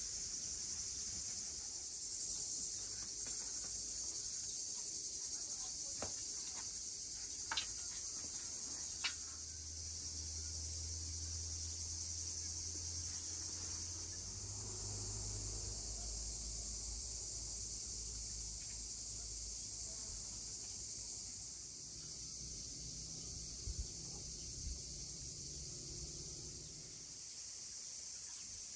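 Insects, crickets by the sound of it, chirring in a steady high-pitched drone, with a few sharp clicks about a quarter to a third of the way in.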